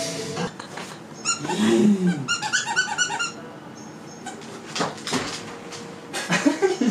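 A dog growling briefly, then a quick run of short, high squeaks from a squeaky plush dog toy being squeezed in front of it.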